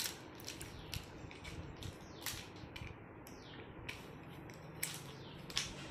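Faint, scattered clicks and taps of small plastic toy animals being handled, picked up and knocked against one another and the tiled floor.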